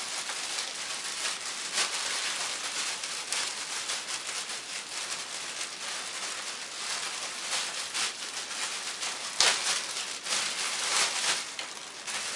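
Plastic packaging bag rustling and crinkling as it is handled, in a steady run of irregular crackles, with one sharp click about three-quarters of the way through.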